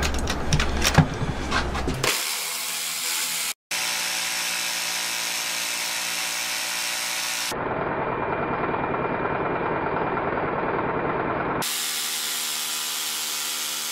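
Electric jigsaw running steadily as its blade saws through a thick block of linden wood, with a momentary break about three and a half seconds in.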